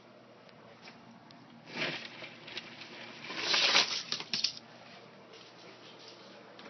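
Rustling and rattling as a hand works through the contents of a plastic bin and a plastic bag: a short burst about two seconds in, then a louder, longer one in the middle.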